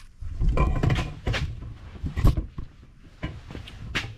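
Irregular handling knocks and clunks as hands work around a bare aluminium engine block and its crankshaft, with the camera being moved; the loudest clunk comes a little past two seconds in.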